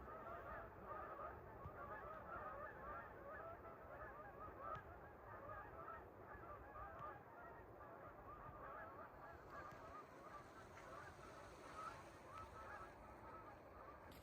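A flock of geese calling, faint: many short honks overlapping in a continuous chatter, thinning out after about nine seconds.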